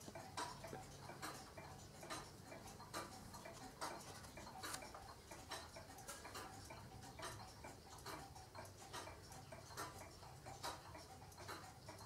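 Mechanical pendulum cuckoo clocks ticking faintly, the ticks of several clocks overlapping at uneven spacing, with the loudest ticks coming a little under a second apart.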